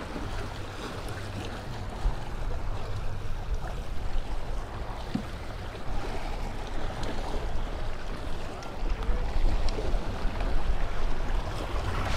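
Small waves washing against the jetty's boulders, with wind buffeting the microphone as a low rumble that gets heavier from about nine seconds in.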